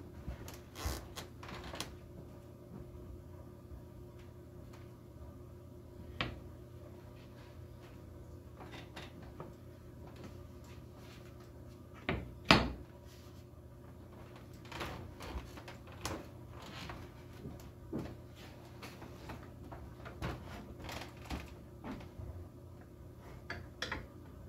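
Scattered knocks and clicks of frame moulding being handled and pressed together in a corner clamp, with one louder knock about halfway through. A low steady hum runs underneath.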